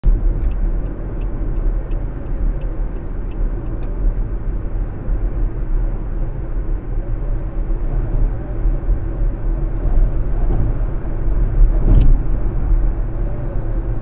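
Steady low rumble of engine and tyre noise inside a car cruising on an expressway, with a few faint ticks early and a brief louder knock about twelve seconds in.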